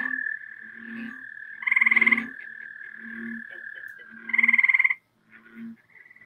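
Recorded chorus of Northwoods frogs: a long steady trill of American toad, repeated pulsed trills of gray treefrog, and low repeated calls of green frog and American bullfrog. The trills stop about five seconds in, leaving only the low calls.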